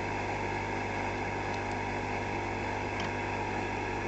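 Steady airflow hiss with a low hum from a running Blackjack BK6000 hot air rework station blower, with a couple of faint ticks.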